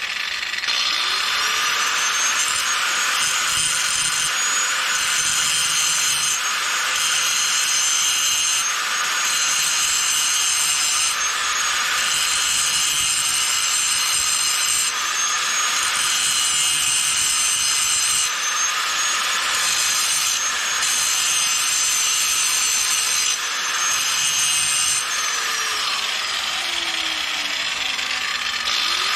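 Handheld electric grinder grinding down fresh welds on steel, running continuously, its motor whine dipping under load and picking back up at times.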